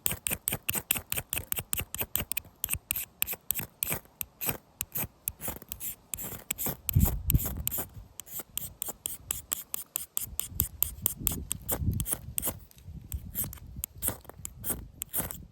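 Fast, even scraping strokes of a hand fire-lighting tool, about five a second, becoming sparser and less regular about halfway through, with a few low thumps.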